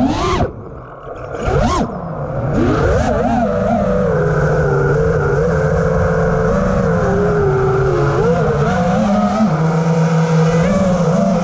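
Brushless motors and propellers of a 5-inch 6S FPV quadcopter whining, heard through its onboard camera. The pitch and level drop as the throttle comes off about half a second in, sweep sharply back up near two seconds, then hold a fairly steady whine with small wobbles.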